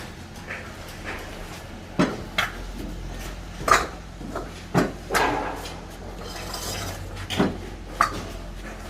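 A series of irregular knocks and clanks, about seven spaced roughly a second apart, over a steady low hum.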